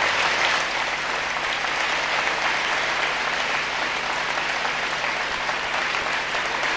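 Large seated audience applauding, a dense, steady clapping that holds at an even level throughout.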